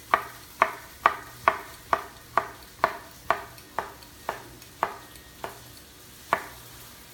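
Kitchen knife slicing a cucumber into thin half-moons, each stroke a sharp knock, about two a second, spacing out a little toward the end, with one last cut after a short pause.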